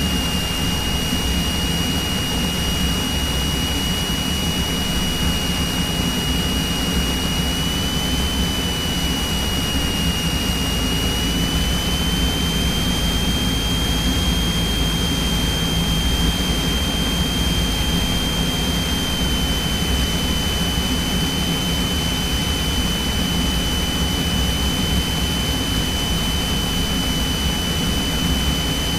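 Cessna 172's piston engine and propeller droning steadily, heard inside the cabin, with a thin high whine that drifts slightly up in pitch about a third of the way in and settles back down past the middle, on the approach for a touch-and-go.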